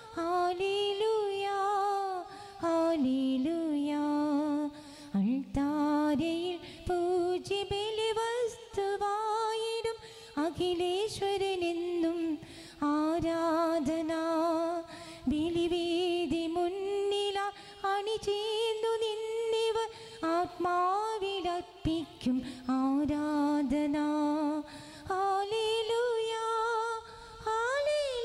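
A single voice singing a slow hymn melody in held notes and phrases: the entrance hymn at the start of a Mass.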